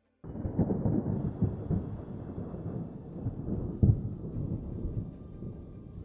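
A loud low rumble that starts abruptly, with crackling peaks, and slowly dies away.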